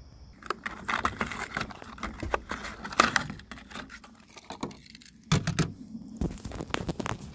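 Plastic blister pack of a die-cast toy car crackling and clicking as it is handled and turned over, followed by a few dull knocks about five and six seconds in.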